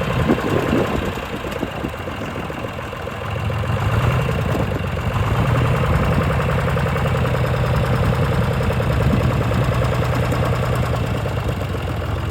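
John Deere 2155 tractor's three-cylinder diesel engine running steadily, picking up in loudness about four seconds in.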